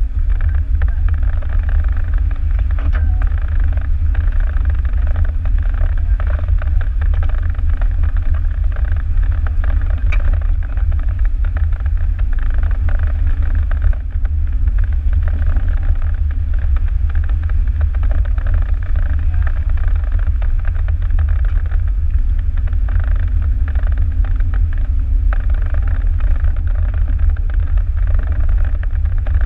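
Jeep driving on a wet gravel road: a steady low rumble of engine, tyres and body vibration, picked up by a camera mounted on the hood.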